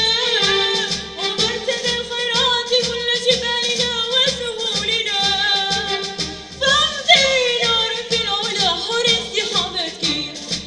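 Mixed choir of young women and men singing into microphones over a steady percussion beat.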